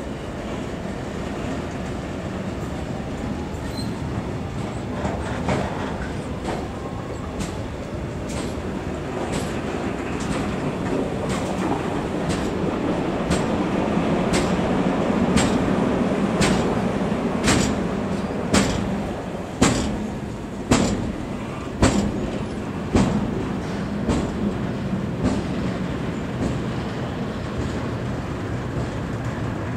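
Intermodal freight train of tank containers and semi-trailers on wagons rolling past close by: a steady rumble of the wheels on the rails, with sharp clacks about once a second as the wheels cross a rail joint. The clacks are loudest about two-thirds of the way through.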